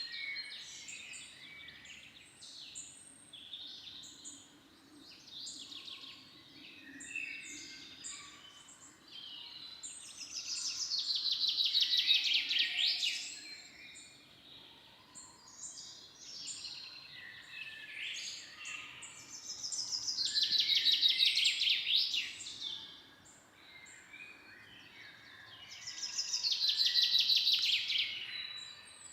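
Several wild birds chirping and singing in a forest, with one bird repeating a loud, rapid trilled song three times, each phrase lasting about three seconds.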